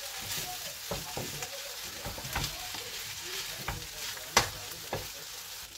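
Noodles and vegetables sizzling in a hot frying pan as a wooden spatula stirs and tosses them, with a few sharp knocks of the spatula against the pan, the loudest a little after four seconds in.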